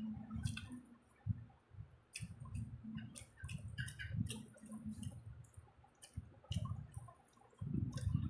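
Close-up eating sounds: chicken biryani and chicken curry being chewed, with irregular wet clicks and smacks of the mouth.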